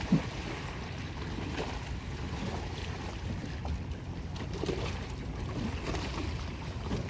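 Outdoor sea ambience: a steady low rumble of wind on the microphone over open water, with faint scattered small sounds.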